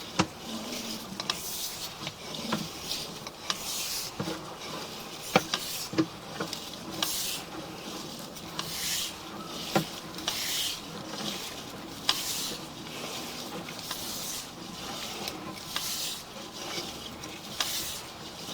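Water running through a plastic sewer line, picked up by the sewer camera's microphone inside the pipe: a splashing, trickling hiss that surges about once a second, with a few sharp clicks and knocks.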